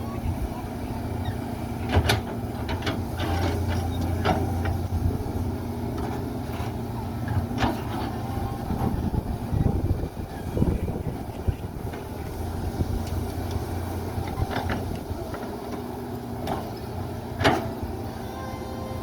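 Heavy diesel machinery running steadily, with sharp metallic knocks every few seconds, the loudest near the end.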